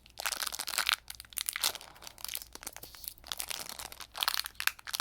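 Foil wrapper of a Pokémon booster pack crinkling in bursts of crackle as someone grips and struggles to tear it open.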